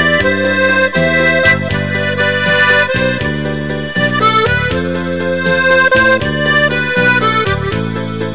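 Background music played on an accordion: a tune over held chords that change every second or so, with one note held throughout.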